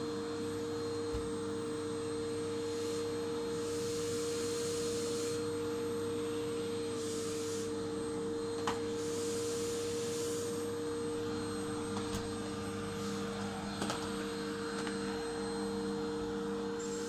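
Electric vacuum cleaner running steadily, its motor giving a constant whining hum, with a few light knocks as it is pushed around.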